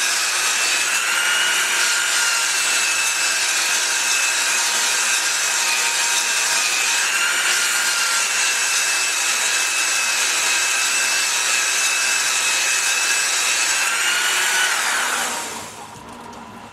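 Scotch-Brite abrasive belt running against the turning journals of a Ford GPW Jeep crankshaft on a Storm Vulcan crankshaft grinder: a steady hiss of the belt polishing the steel, with a faint whine from the belt attachment. The belt is lifted off and it dies away near the end.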